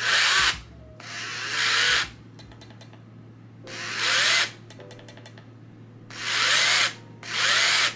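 A combat robot's drive motors spin its raised wheels in five short bursts as the throttle stick is pushed forward and released; most bursts swell up as they start, with a whine that rises in pitch. This is a wheels-up trim test, checking whether the left and right motors start together.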